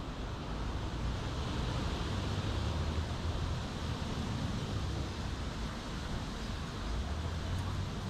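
Steady outdoor background noise: a low rumble that swells and fades, typical of wind on the microphone, over an even hiss.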